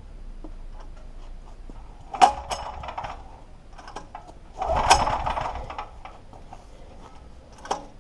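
Clarke FG5100ES generator's 13 hp petrol engine being pull-started on its recoil starter: two pulls, each a sharp snatch followed by about a second of rasping whirr as the rope runs out and the engine turns over. It does not catch and run after either pull.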